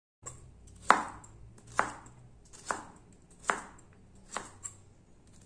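Knife chopping diced carrot on a plastic cutting board: five sharp, evenly spaced chops, just under a second apart.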